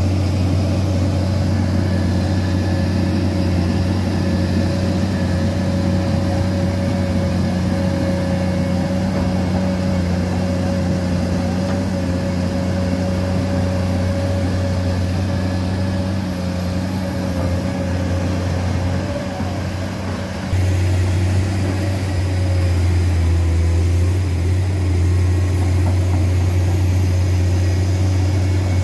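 Komatsu PC210 excavator's six-cylinder diesel engine running steadily with a deep, even hum as the machine tracks through mud. The sound sags slightly and then comes back louder about two-thirds of the way in.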